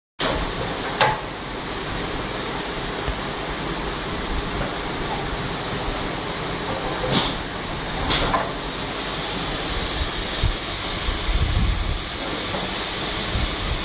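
Compressed air hissing steadily from a hand-held blow gun blown over a crankshaft. A few sharp clicks come about a second in and again around seven and eight seconds in, and a steady high whine joins from about eight and a half seconds in.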